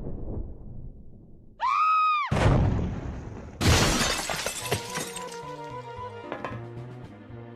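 Sound effects: a brief high tone that rises and falls, then glass shattering in two crashes, the second one louder, about two and a half seconds and three and a half seconds in. Music follows.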